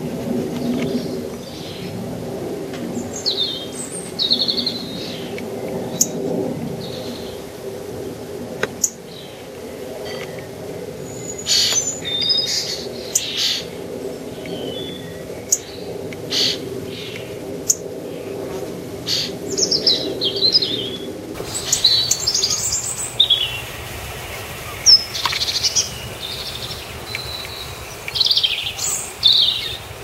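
Garden birds chirping and calling: short, high chirps and twitters scattered throughout, over a low, steady background hum.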